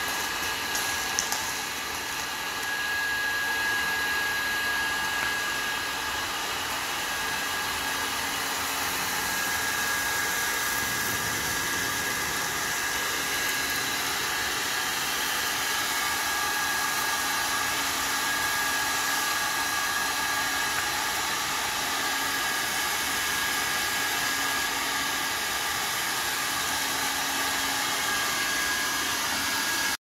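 Dirt Eater H-class cyclonic industrial vacuum running steadily, a rushing suction noise with a high whistle that comes and goes, as its floor nozzle on a 10 m hose is swept over a dusty concrete floor.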